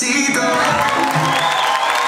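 Salsa music ends on its final notes about half a second in, and an audience starts applauding and cheering.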